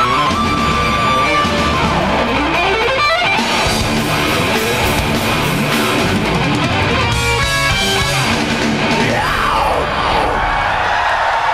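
A melodic death metal band playing live: distorted electric guitars, drums and keyboards, loud and dense. A lead line slides up in pitch about two seconds in and slides back down near the end.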